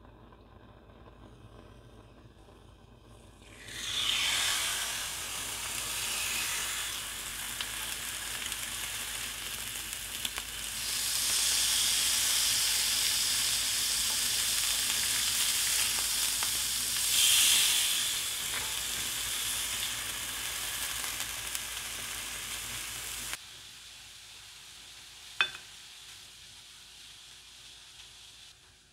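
Marinated chicken breasts sizzling on a hot ridged grill pan, the sizzle starting about four seconds in as the meat goes onto the grill and swelling louder a couple of times. It cuts off abruptly, leaving a quieter stretch with a single sharp click near the end.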